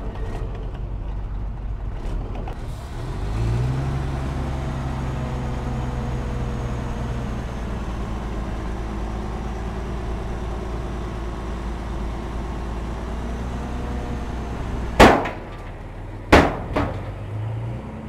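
Heavy diesel construction machine's engine running, revving up about three seconds in and holding there, then easing. Near the end come three sharp, loud bangs, the first the loudest, followed by two close together.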